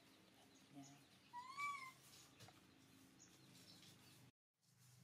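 A baby macaque gives a single short coo call, a clear high note that rises and falls, about a second and a half in, over near-quiet room tone.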